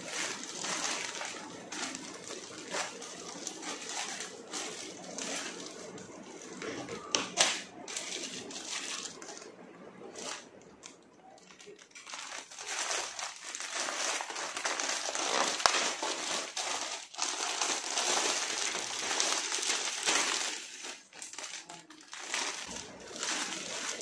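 Plastic courier bag crinkling and rustling as it is cut open with scissors and handled, with a few sharp clicks and a quieter lull about halfway through.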